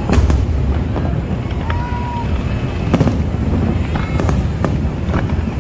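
Fireworks bursting: several sharp bangs over a steady low rumble, the loudest right at the start and about three seconds in, then a quick run of bangs between four and five seconds.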